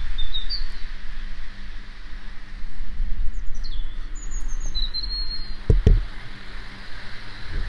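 Small birds chirping in short high calls and trills, several of them between three and five seconds in, over a steady low rumble; a dull thump stands out just before six seconds.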